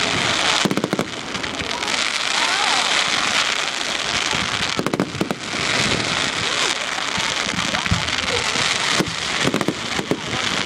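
Fireworks display: continuous dense crackling, with clusters of sharp bangs about a second in, around the middle and near the end, and crowd voices underneath.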